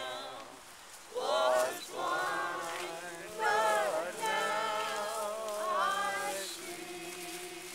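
Slow singing, with long held notes that waver in vibrato and a short pause about a second in.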